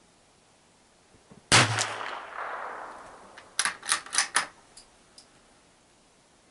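A single shot from a Savage .22 LR bolt-action rifle about one and a half seconds in, its report echoing away over the next second or so. Then a quick run of four or five sharp metallic clicks as the bolt is worked to eject the case and chamber the next round.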